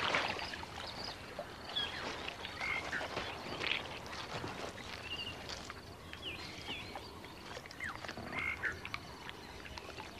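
Quiet waterhole ambience with scattered short, high chirping calls from small animals, some of them sliding in pitch.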